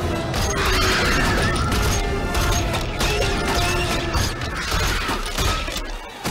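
Film battle sound effects: futuristic rifle fire with mechanical clatter and crashing impacts, mixed with a music score. The loudness dips briefly near the end.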